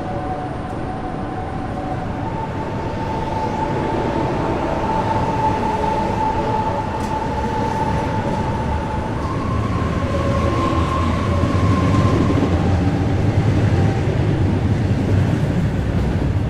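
Ivolga (EG2Tv) electric multiple-unit train running: a steady rail rumble with a high electric whine that shifts pitch in steps, growing louder toward the end.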